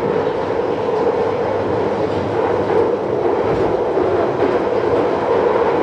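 London Underground Central line train running on the track: a steady, loud rolling noise of wheels on rail.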